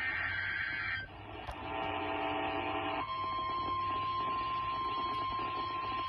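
Emergency Alert System signal on NOAA Weather Radio. Buzzy digital alert-header bursts run for about the first three seconds; then the steady 1050 Hz warning alarm tone starts and holds, the signal that an urgent warning message follows. Both are heard over radio hiss and hum.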